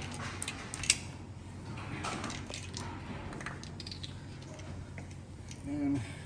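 Scattered small clicks and light metallic clinks of hand-handling plastic and metal chair parts, screws and a Torx driver, with one sharper click about a second in.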